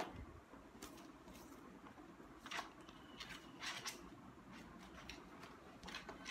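Faint, scattered rustling and handling noises, a few short soft swishes over quiet room tone.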